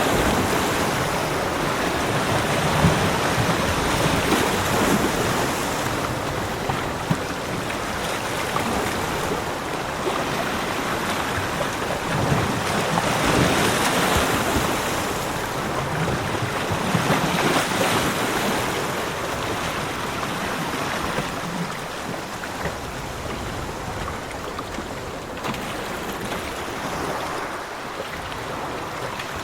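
Ocean surf washing onto a beach, swelling and easing every few seconds, a little softer near the end.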